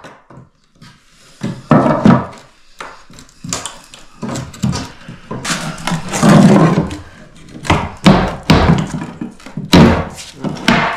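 Irregular wooden thuds and knocks as old floorboards are worked and pried loose, with louder knocks about two seconds in and a cluster in the second half.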